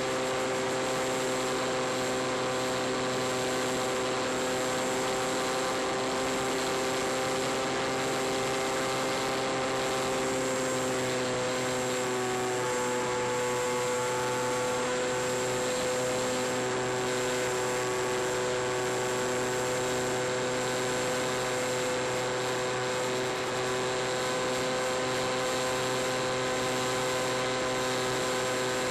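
Skywalker radio-controlled FPV plane's electric motor and propeller running steadily in flight, a continuous whine whose pitch shifts slightly about halfway through.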